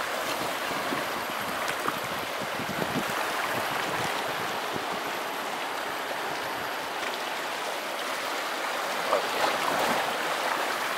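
Sea water washing among shore rocks: a steady rush of surf that swells a little about nine seconds in.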